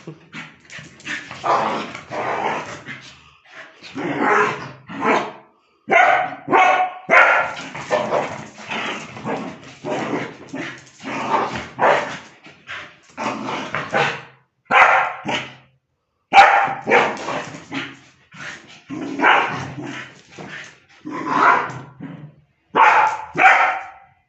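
A dog barking over and over in short bursts with brief pauses between them.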